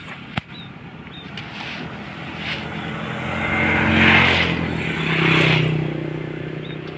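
Motorcycle engines passing close on the road: the engine noise builds, is loudest about four seconds in, swells again about a second and a half later, then fades. A single sharp knock sounds just under half a second in.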